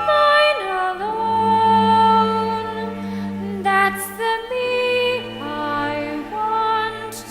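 A female voice singing slow, held notes over an instrumental accompaniment.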